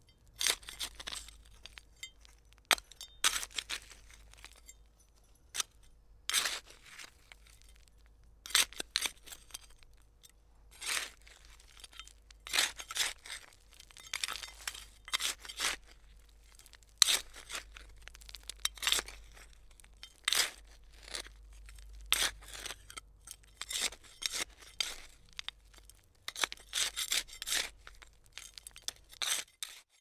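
Hand trowel digging: a string of short scraping, crunching strokes as the blade bites in, coming irregularly about every second or two, and stopping just before the end.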